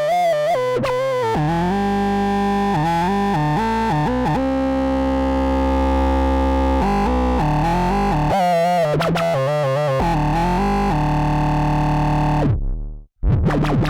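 Dreadbox Hades analog synthesizer playing a line of changing notes, with a long held low note in the middle. Near the end the sound falls in pitch and cuts out, and a new, rapidly pulsing sound starts.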